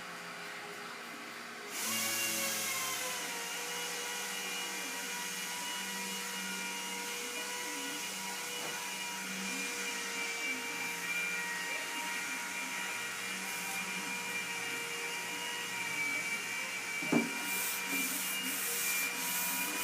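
Hand block-sanding of primer on a car trunk lid with a Curvecaster sanding board and 220-grit paper, a rubbing sound. About two seconds in a steady machine whine starts up and runs on underneath, and there is a single knock near the end.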